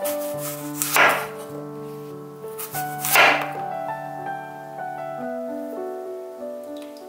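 A large kitchen knife cutting through a raw apple on a wooden cutting board, twice, about two seconds apart, each cut a short noisy crunch. Soft piano background music plays throughout.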